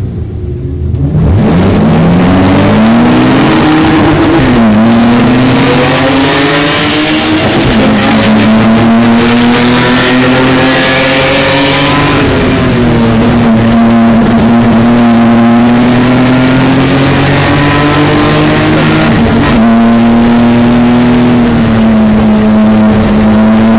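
BMW E30 race car's inline-six engine heard from inside the car at a standing start. It launches hard about a second in, then revs up and upshifts through the gears several times, with the pitch climbing and dropping back at each shift. It holds a steady high drone near the end, over wind and tyre noise.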